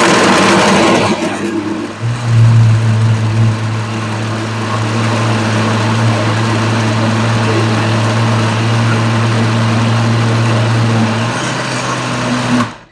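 Countertop blender motor running steadily on a thick mixture, a loud low hum over a whirring noise, then cutting off suddenly near the end. The mix is too thick to blend smoothly.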